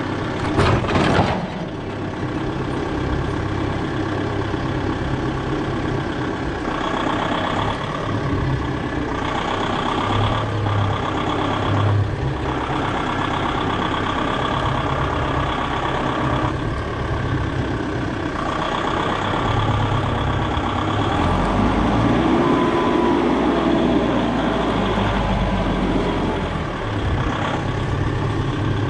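Engine running steadily, with a sharp knock about a second in and a rise and fall in pitch about three-quarters of the way through.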